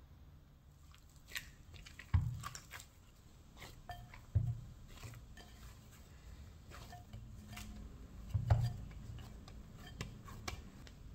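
Dough being kneaded by hand in a ceramic bowl, with three dull thumps as the dough and bowl are pushed and scattered small clicks.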